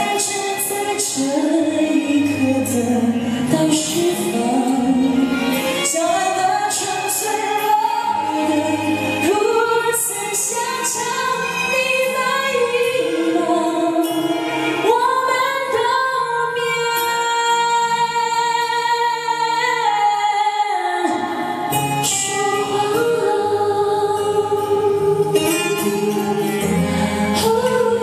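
A solo singer performing a Mandarin pop ballad live into a handheld microphone over backing music through PA speakers. A little past the middle the voice holds one long note before breaking off.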